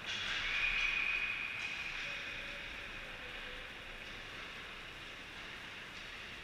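Echoing sounds of an ice hockey game in a large indoor rink: a sudden burst of noise at the start, with a brief high tone in it, that fades over about two seconds into a steady hiss.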